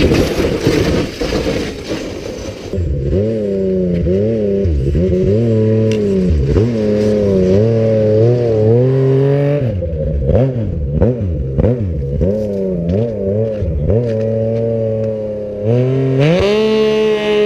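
Snowmobile engine revving up and down over and over in short throttle blips, then rising and holding high near the end as a sled climbs the hill. A rough scraping, clattering noise fills the first few seconds.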